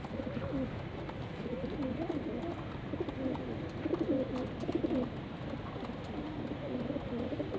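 A flock of domestic fighter pigeons cooing, many low warbling coos overlapping one another without a break.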